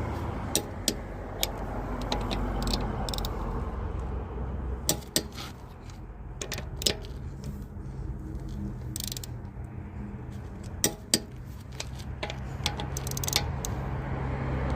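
Click-type torque wrench tightening lug bolts to 90 ft-lb, with a dozen or so sharp metallic clicks at irregular intervals as bolts reach torque and the socket is moved from bolt to bolt. A steady low hum runs underneath.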